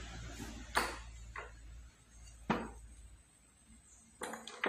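Metal parts of a brush cutter engine knocking and clicking against each other and the wooden workbench as the crankcase is handled and set down: five or six sharp, irregular knocks, over a low hum that dies away about two seconds in.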